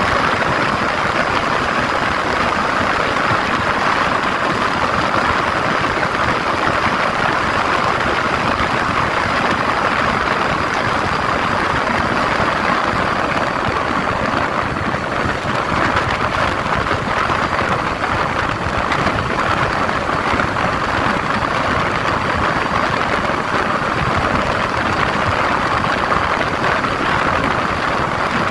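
Steady wind rush and the drone of a single-cylinder 150cc Yamaha motorcycle engine cruising at highway speed, about 100 km/h and near 7,000 rpm.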